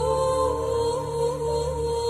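Background music: a single held melody line that wavers in small ornaments, over a steady low drone.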